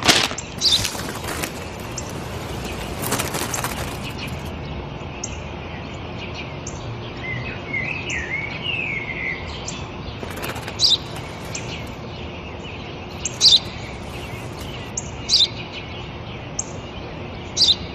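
Sparrow chirping in short single chirps every second or two, with a brief twittering run about eight seconds in. A newspaper rustles as it is opened near the start and again around three seconds in.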